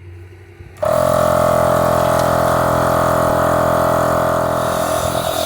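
A 12-volt portable air compressor with a direct-drive electric motor switches on about a second in and runs steadily with a loud, even hum and whine.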